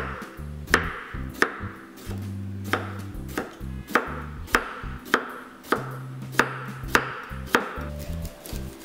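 Chef's knife slicing a cucumber into rounds on a wooden cutting board: a crisp chop about every two-thirds of a second, each with a brief slicing hiss. Lounge music plays quietly underneath.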